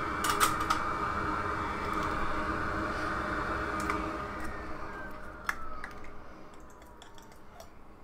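Hot air rework station blower running steadily, then winding down with a falling whine from about four seconds in, as the board is left to cool after hot-air work on the charging IC pads. A few sharp clicks sound over it.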